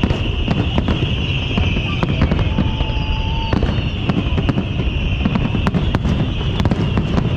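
Fireworks going off: many sharp pops and crackles throughout, with a short steady whistle about two and a half seconds in.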